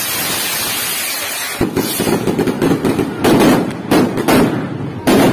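Ground fountain firework hissing as it sprays sparks, then from about a second and a half in, a rapid irregular string of loud firecracker bangs.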